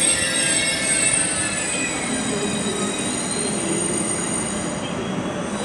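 ICE high-speed train rolling along the platform track, its wheels squealing in several high steady tones that fade out about five seconds in, over a low rumble of the running gear.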